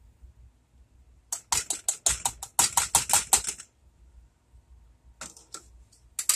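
A plastic measuring spoon tapped quickly against the rim of a saucepan to knock out brown sugar, making a rapid run of sharp taps for about two seconds. A few lighter clicks follow near the end as the spoon is set down on the counter.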